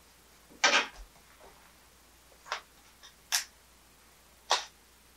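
A camera and tripod being handled as the camera is set up: a brief rustle and a soft low thump near the start, then a few sharp clicks spread over the next few seconds.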